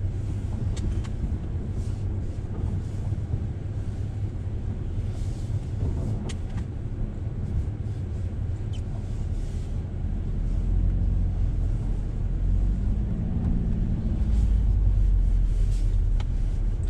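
Volkswagen Golf R's turbocharged 2.0-litre four-cylinder engine heard from inside the cabin as the car pulls away, its engine sound set to race mode. A low rumble that grows louder about ten seconds in as the car accelerates.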